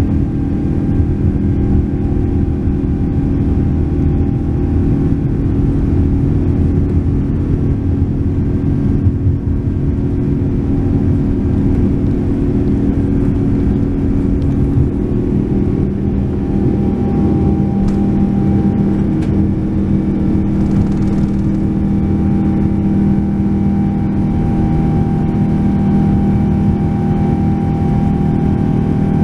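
Boeing 787-9's Rolls-Royce Trent 1000 turbofan engines at takeoff thrust, heard from inside the cabin during the takeoff roll and lift-off: a loud, steady drone over a low rumble, with a higher whine growing stronger about halfway through.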